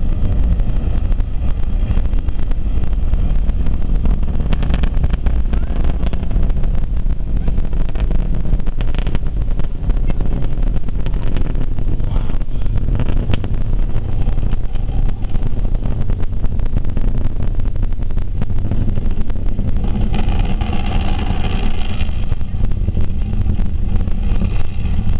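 Rocket launch heard from a distance: a loud, steady low rumble with a continuous crackle running through it.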